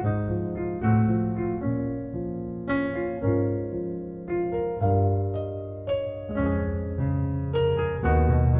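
Solo piano music: slow, gentle chords and melody with a sustained bass line, new notes struck about once a second.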